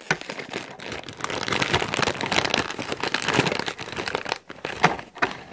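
Shiny plastic crisp bag crinkling as it is handled, a dense irregular run of crackles.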